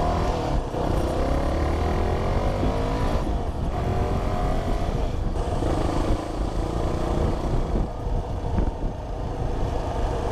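Motor vehicle engine accelerating, its pitch rising over the first few seconds, then running on steadily.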